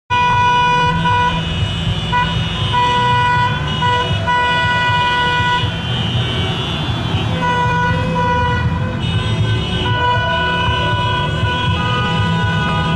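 Car horns in a slow-moving convoy sounding in long held blasts, at more than one pitch and overlapping, with brief breaks, over a steady low rumble of engines and traffic.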